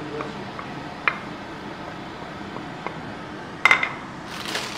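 Wooden spoon tapping and scraping against a ceramic plate and stainless pan as chopped spring onions are knocked into the pan, a few light taps and then a louder clink of dishware about three and a half seconds in. A crackling rustle, like a plastic bag being handled, starts near the end.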